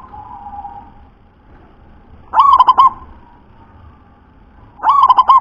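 Zebra dove cooing its stuttering song: two calls about two and a half seconds apart, each a quick run of four or five notes. The second comes near the end.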